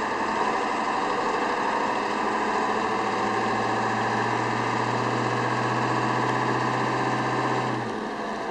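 1997 Ford F-250's 7.3-litre Powerstroke V8 turbo diesel running as the truck drives off slowly, heard from inside the cab. A steady low drone builds a few seconds in, then drops away and the engine quiets near the end.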